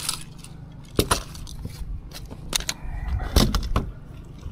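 A handful of sharp knocks and thumps in a boat, about five over four seconds and irregularly spaced, as a freshly landed barramundi is handled. A low steady hum runs underneath.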